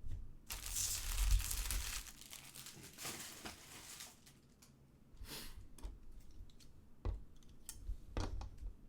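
Trading-card packaging being torn open and crinkled: a long rip about half a second in and a shorter one a couple of seconds later, followed by scattered light clicks and rustles of handling.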